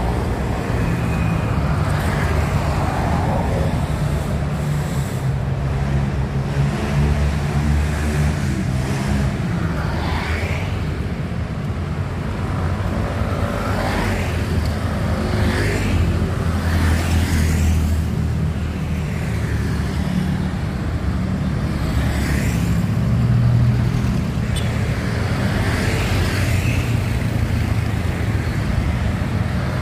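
Street traffic: a steady low engine hum with several vehicles passing one after another, each rising and fading.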